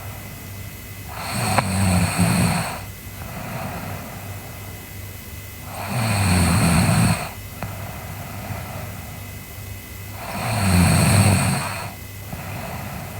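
A sleeping girl snoring: three snores about four to five seconds apart, each lasting about a second and a half, with quieter breathing between them.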